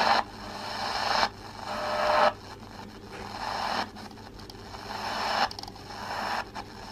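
Shortwave static hissing from the SI4732 receiver's speaker in AM mode as it is tuned up the 19 metre broadcast band between stations. The hiss swells and then cuts off sharply with each tuning step, about once a second, and a faint whistle is heard briefly about two seconds in.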